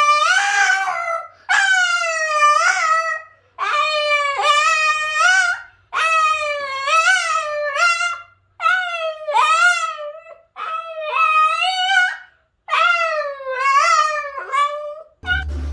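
Boston terrier howling: a run of about eight long, wavering howls, one after another with brief breaks between them. Music comes in just before the end.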